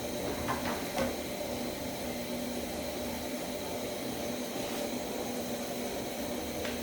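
Pot of githeri and potatoes cooking on the stove: a steady hiss with a faint hum, and a couple of light clicks about half a second and a second in.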